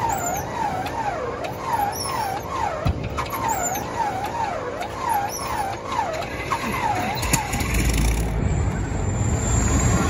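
Cessna 195's seven-cylinder Jacobs radial engine being cranked by its electric starter without firing. The starter whine swoops up and down about twice a second as the engine turns over, and it stops about seven and a half seconds in. This is the hard start that the mechanic puts down to a leaking carburettor needle valve flooding the engine rich.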